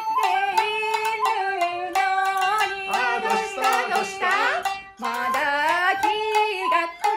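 Japanese folk song (min'yō) played on shamisen and shakuhachi, with a woman singing the melody over the plucked shamisen strokes and the breathy bamboo flute line.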